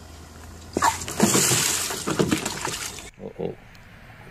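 Water from a plastic toy bucket tipped out and splashing down, a rush lasting about two seconds that cuts off suddenly, with a child's cry mixed in as it starts.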